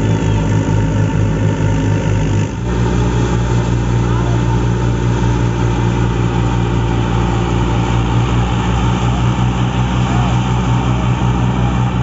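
Old Fiat 480 tractor's diesel engine running steadily under load, driving a wheat thresher through its PTO, with the thresher's drum adding a noisy whir. The drone dips briefly and shifts slightly in pitch about two and a half seconds in.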